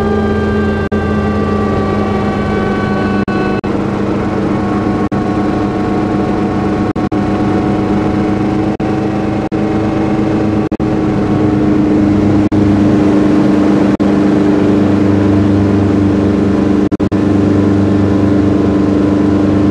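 Schweizer 300C helicopter's piston engine and rotor heard from inside the cabin during a practice autorotation, a steady drone whose pitch eases down over the first few seconds. About twelve seconds in the sound grows louder and stays up as the helicopter nears the ground.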